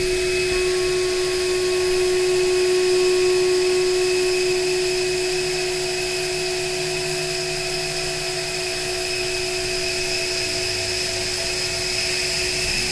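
CNC router spindle whining at a steady pitch as a face mill takes a light 0.1 mm facing pass along an aluminum rail channel.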